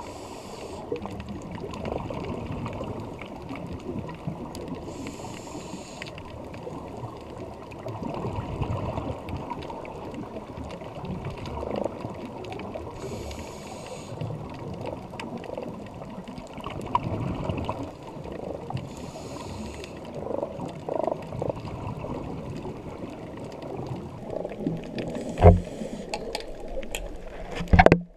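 Scuba diver breathing through a regulator, heard underwater: a short hiss of inhalation every six to eight seconds, with bubbling and crackling from exhaled air in between. Two sharp knocks sound near the end.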